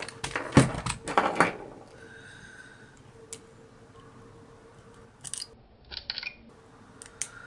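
Hard plastic RC buggy chassis knocking against a workbench as it is turned over, followed by a few small sharp clicks of pliers working at the screws in the chassis plate.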